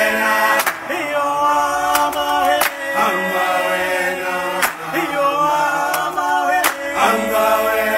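Music: male voices singing together in a chant-like, choral style, with a sharp percussive hit about every two seconds.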